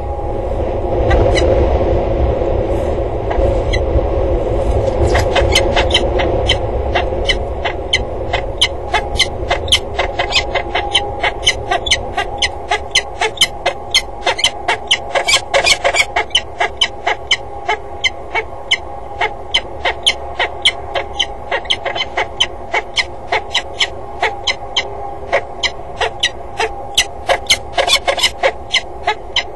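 Peregrine falcons giving a long series of sharp, repeated kek calls, about three a second, while flying around the tower. Wind rumbles on the microphone in the first few seconds.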